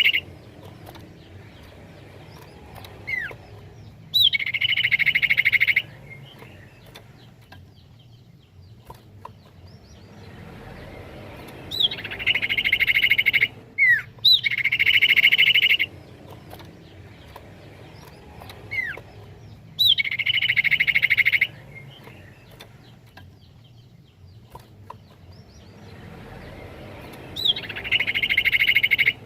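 Common iora (cipoh) song: a few short sweeping whistled notes, then a loud rapid trill lasting one to two seconds, the phrase repeating every several seconds over a faint background hiss.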